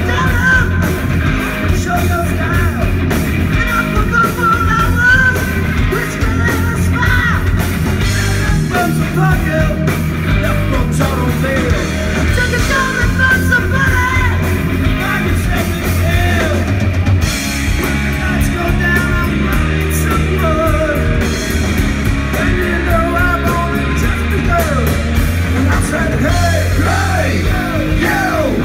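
Rock band playing live: a male singer singing into a microphone over electric guitar, bass guitar and a drum kit.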